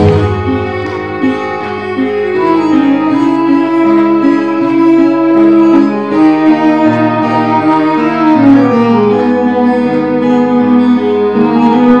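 Instrumental break of a pop song played over a hall PA: a sustained melody line gliding over held chords, with no drum beat and no singing.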